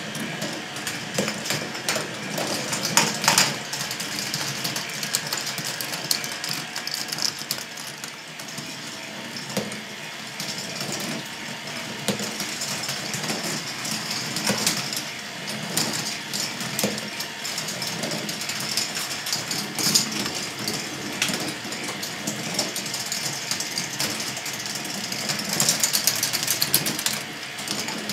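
A large K'nex ball machine running: plastic balls clattering and rattling along plastic tracks and elements, over the steady whir of its motor-driven lifts. Louder bursts of clacking come about three seconds in and again near the end.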